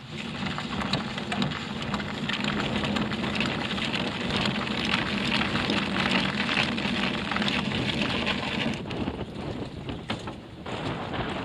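Gusty wind buffeting the microphone, with choppy water slapping and splashing against the small sailboat's hull in a dense crackling wash, easing briefly twice near the end.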